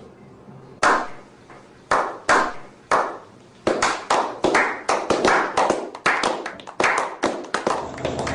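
A series of sharp hand claps, about twenty, spaced out at first and coming quicker and quicker from about halfway through.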